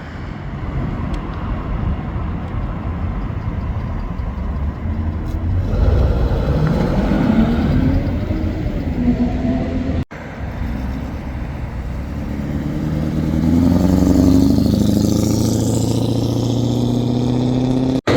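Car engines and exhausts revving and accelerating, the engine pitch rising about six seconds in and again from about thirteen seconds, with a brief cut-out in the sound near the middle.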